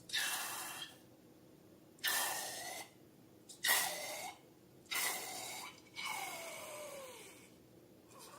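Slime-filled balloon being squeezed, with air and slime forced out through its neck in five short hissing, squelching bursts. Several bursts carry a thin squeak, and the last squeak falls in pitch.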